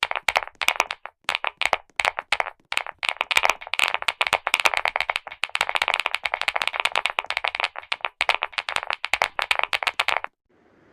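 Clicky mechanical keyboard keys pressed in fast, irregular runs of sharp clicks, which stop abruptly near the end.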